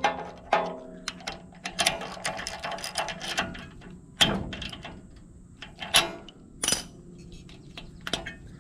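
Hand tools clicking, knocking and scraping during spark plug work on a small engine: scattered sharp metallic clicks, with a stretch of scraping about two seconds in.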